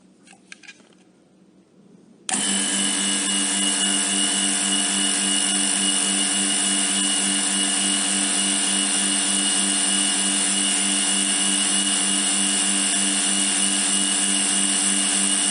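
A machine starts abruptly about two seconds in and runs at a steady, unchanging pitch, a constant motor hum with a high hiss over it.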